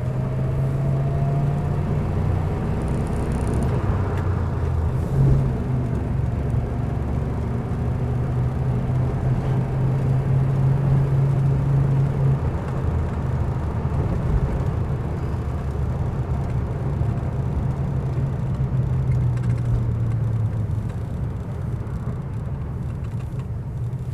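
1935 Rolls-Royce 20/25's straight-six engine running on the move, heard from inside the cabin as a steady low drone mixed with road noise, with a faint rising whine in the first couple of seconds.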